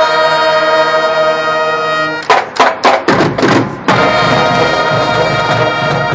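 High school marching band playing: the winds and brass hold a chord, then about two seconds in a run of loud percussion hits cuts through, and the full band comes back in on another sustained chord.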